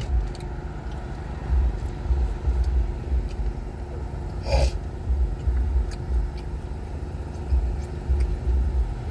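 Steady low rumble of a car's engine and road noise, heard from inside the cabin, with one short noisy burst about halfway through.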